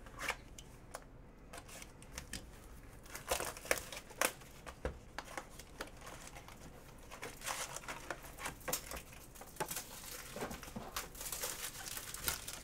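Hands handling and opening a cardboard trading-card hobby box, with scattered taps and scrapes, then a shiny wrapped card pack crinkling and tearing as it is ripped open. The crinkling grows busier in the second half.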